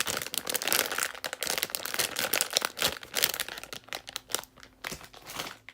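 Plastic packaging crinkling and crackling as a squishy toy is handled, a dense run of crackles that thins out near the end.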